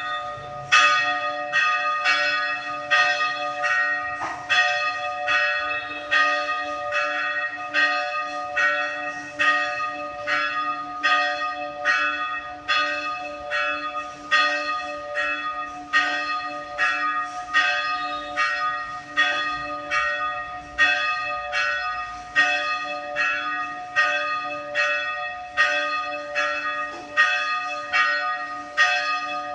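Church bells ringing a festive peal for a feast day: a quick, even stream of strokes, about one and a half a second, over the steady hum of the bells ringing on.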